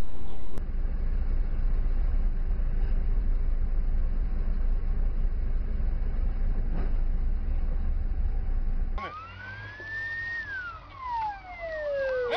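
Steady low road and engine rumble from inside a moving car. About nine seconds in it cuts to a police siren wailing: one slow rise, a brief hold, then a long fall in pitch.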